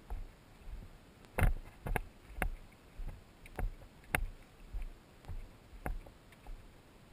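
Footsteps crunching on a gravelly dirt trail at a steady walking pace, about two steps a second.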